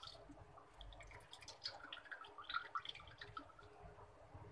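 Faint irregular dripping and spattering of whey as freshly made chhena is squeezed by hand over a metal mesh strainer.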